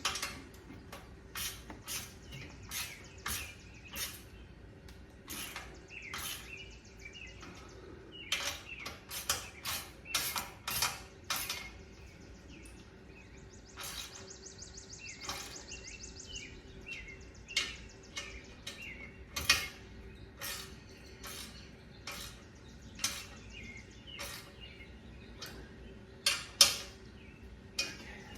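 Bolts on a motorcycle slip-on muffler mount being snugged down with hand tools: irregular metallic clicks and clinks, with stretches of rapid fine clicking like a ratchet's back-swing. Birds chirp faintly in the background.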